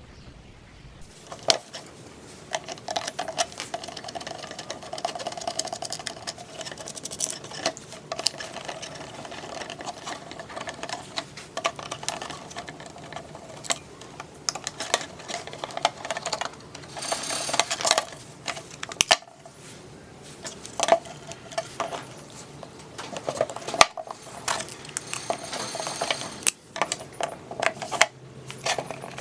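A small motor running with a steady whine, amid many sharp clicks and knocks of metal and hard parts being handled.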